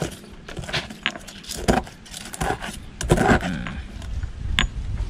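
Stone pestle grinding and knocking burnt lukan clam shells in a stone mortar, crushing them into lime powder. Irregular scraping and clinking crunches with sharp clicks, more continuous scraping in the second half.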